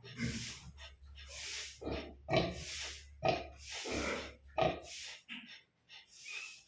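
Pigs grunting and snorting in a series of short bursts, about one a second.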